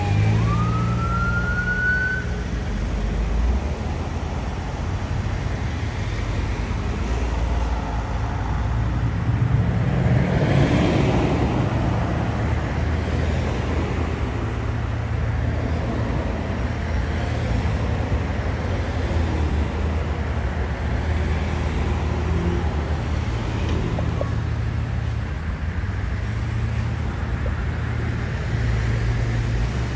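An emergency vehicle siren wails once, falling and then rising in pitch, and cuts off about two seconds in. Heavy engines and traffic run on with a steady low rumble, and a vehicle passes close about ten seconds in.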